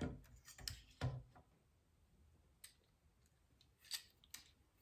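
Hard plastic action-figure parts being handled and fitted together: a few short clicks and taps, the loudest at the start and about a second in, with a couple more near the end.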